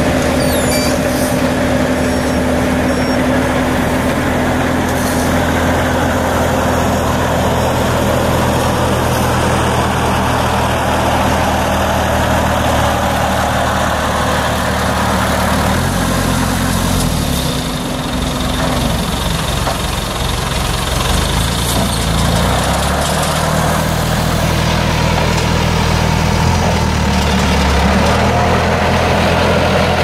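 Diesel engines of a Sumitomo HA60C asphalt paver and a steel-drum road roller running steadily. The engine note drops and rises about halfway through and shifts again a few seconds later as a machine changes speed.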